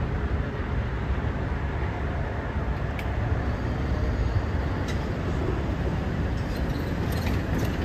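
Low, steady rumble of an Amtrak passenger train running away down the track.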